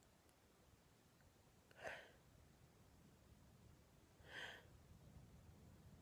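A woman's two short, quiet breaths about two and a half seconds apart, over near silence.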